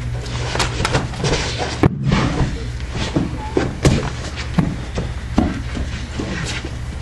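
Scattered thuds and slaps of bodies and bare feet on training mats during a hapkido self-defense drill, over a steady low hum, with a brief drop-out about two seconds in.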